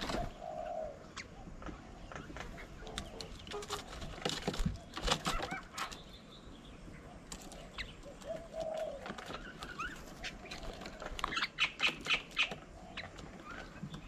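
Mynas at a feeding table: scattered chattering calls, wing flaps and pecking clicks, with a busier flurry of sharp calls and clicks about four and eleven seconds in.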